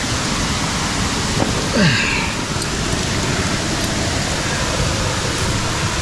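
Steady rushing roar of a waterfall. About two seconds in, one short sound falls in pitch above it.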